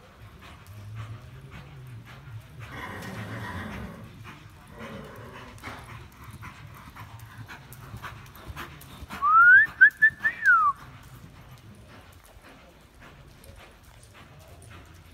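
Horse's hooves beating a steady loping rhythm on soft arena dirt. About nine seconds in, a dog whines loudly in a short run of high notes that rise, break up, then fall away.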